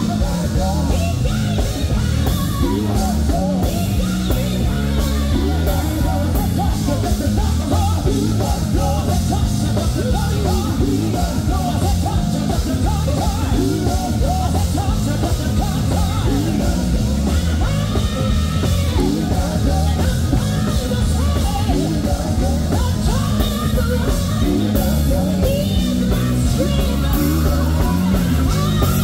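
Live gospel singing with band accompaniment: loud voices wavering over heavy, continuous bass and percussion.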